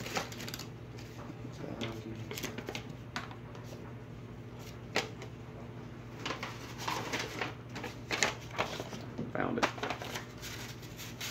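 Rummaging for and handling sheets of sandpaper: scattered paper rustles and light clicks and knocks, over a steady low hum.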